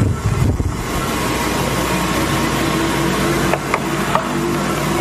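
A steady low mechanical hum with several steady tones, a short low rumble right at the start, and a few brief high tones a little past the middle.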